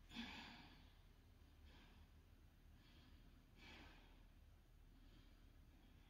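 A person breathing out hard and faintly from exertion, about five exhales a second or so apart, the first one, right at the start, the loudest.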